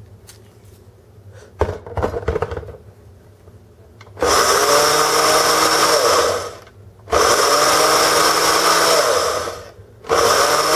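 Countertop blender grinding whole-grain rolled oats into flour. It runs in pulses of two to three seconds, the first starting about four seconds in and a third beginning near the end, and the motor winds down in pitch briefly between them. Before the first pulse there are a few knocks.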